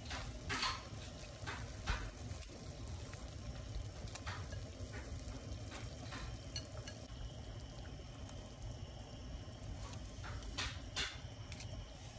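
Water at a rolling boil in a stainless steel pot, bubbling steadily, with short splashes as stuffed bitter-melon pieces and meatballs are dropped in by hand: several in the first two seconds and two more near the end.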